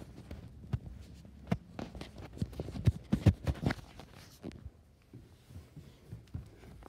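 Irregular knocks and thumps of footsteps and a phone being handled while it is carried. The thumps are loudest in the first half and fainter after about four and a half seconds.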